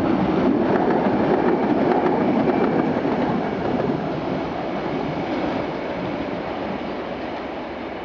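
Tatra KT8D5 articulated tram passing close, its wheels rumbling on the rails with a few clicks over rail joints and a faint high steady whine. The sound fades steadily from about halfway through as the tram runs away.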